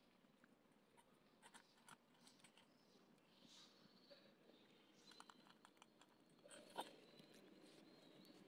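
Faint crunching and clicking of a cat chewing dry kibble from a stainless steel bowl, with one sharper click late on.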